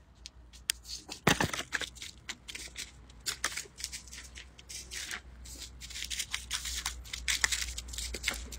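Footsteps crunching and rustling on dry fallen leaves and grit along a dirt path: scattered, irregular crackles, a few louder crunches about a second in and again near the middle.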